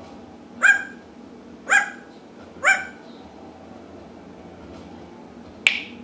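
African grey parrot imitating a dog's bark: three short barks about a second apart, each rising sharply in pitch, then a single brief sharp squeak near the end.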